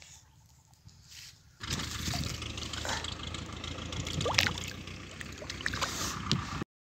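Pond water splashing and sloshing around a hand holding a large fish in the water and letting it go. It starts about a second and a half in, has a few sharper splashes in the middle, and cuts off suddenly near the end.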